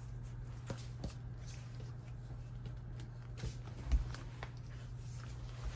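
Light handling of a pocket ring planner: a few soft scattered clicks and taps of paper pages and a plastic ruler insert being put in place, with a dull thump about four seconds in, over a steady low hum.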